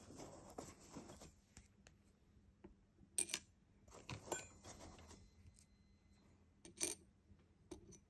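Small metal objects clinking and tapping: a few sharp clinks about three, four and seven seconds in. The one near four seconds rings briefly, as a small metal part or tool set down on a hard surface does.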